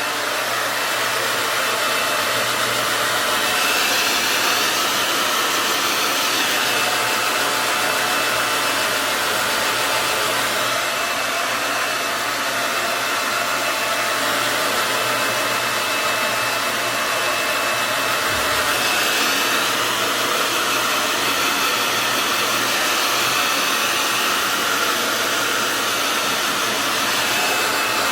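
Handheld hair dryer, years old, running steadily while blow-drying hair: a continuous rush of air with a faint high whine on top.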